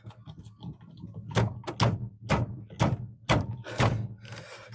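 A run of about seven dull knocks and thunks over some three seconds, starting about a second in: a 1990 Chevy C1500's steering wheel being yanked and struck by hand to break it loose from the steering column shaft.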